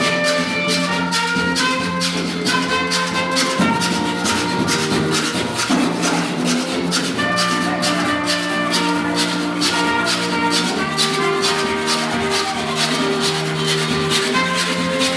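Rake 'n' scrape music played live: a hand saw scraped in a fast, steady rhythm over held melody notes.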